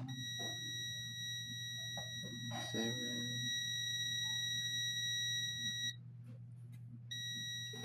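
A multimeter's continuity beeper gives a steady high beep for about six seconds, breaks off for about a second, then sounds again near the end, as the probes touch the commutator bars of a vacuum motor armature. The beep signals a low-resistance path between the bars. A low steady hum and a few light clicks lie under it.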